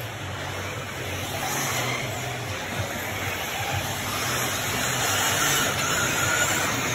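Electric 1/8-scale RC truggies racing around a dirt track, over a steady low hum, the sound growing a little louder in the second half.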